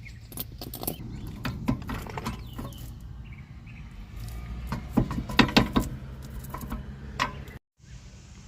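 Metal clinks and light knocks of tools and parts being handled during wheel hub work, with a quick louder cluster about five seconds in.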